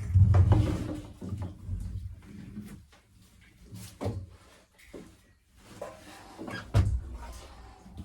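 Irregular bumps, knocks and scrapes of hands working with hard objects in a small enclosed space. A heavy thud comes right at the start and a sharp knock near the end, with lighter knocks and scraping between.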